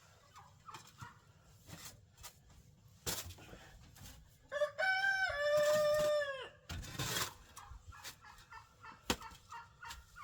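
A rooster crows once about halfway through, a stepped call ending in a long held note that drops away at the end. Hens cluck softly around it, with a short scrape just after the crow and a couple of sharp knocks.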